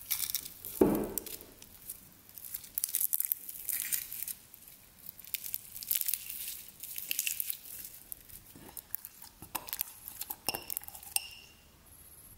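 Crunchy sugar-syrup crust on clear slime crackling and crinkling as hands break it up and peel it away, in repeated clusters of sharp crackles. A single louder low thump about a second in; the crackling dies down near the end.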